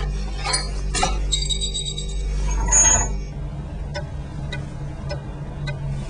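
Glass items clinking and knocking together in a series of short strikes, some with a brief ringing tone, as things are shifted about in a fridge. Under them runs a low steady hum that stops about three seconds in. Only a few light ticks follow.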